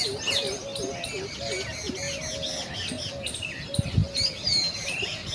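A chorus of songbirds chirping and whistling over one another, with a lower call repeating steadily underneath. A brief low thump comes about four seconds in.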